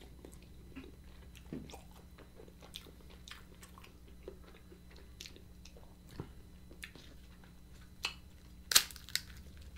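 Quiet close-miked chewing of roasted alligator meat: small wet mouth clicks and smacks. About nine seconds in comes a louder crackling, as the crisp roasted meat and ribs are pulled apart.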